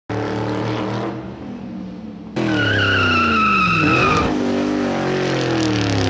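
A car engine running steadily, then, about two seconds in, getting suddenly louder with its pitch falling and rising again, while tyres screech for a second and a half or so.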